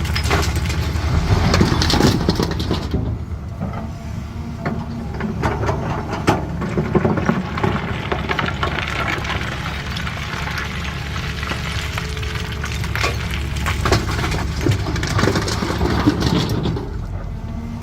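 CAT 320D excavator's diesel engine running steadily under load while stone clatters and grinds against its bucket, with many scattered knocks and cracks of rock.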